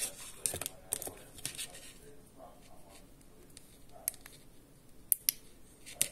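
Handling noise from a neckband Bluetooth earphone: rustle of its cable and housing, with a few sharp plastic clicks as the buttons on its control unit are pressed, two of them close together about five seconds in.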